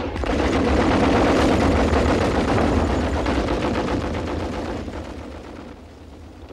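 Continuous rapid machine-gun fire, a dense rattle of shots, fading away over the last three seconds or so.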